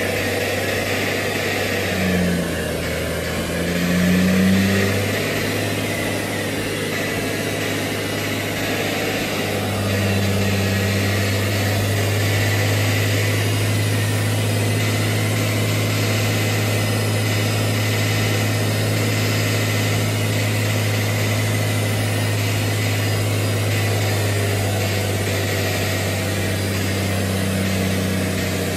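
Compound-turbo 5.9 Cummins diesel in the pickup idling on the chassis dyno. Its pitch and loudness rise and fall once a few seconds in, then it settles to a steady idle.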